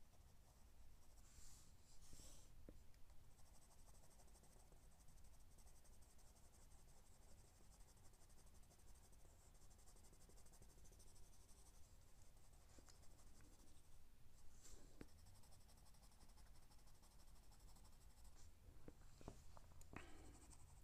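Faint scratching of a graphite pencil shading on drawing paper, in short, irregular strokes.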